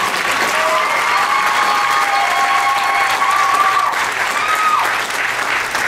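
Audience applauding steadily, with a high held tone over it that bends and stops about five seconds in.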